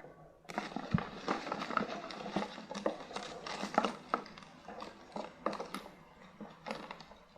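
A deck of cards shuffled by hand: a dense run of rapid soft clicks and rustling, starting about half a second in, with one sharper tap about a second in.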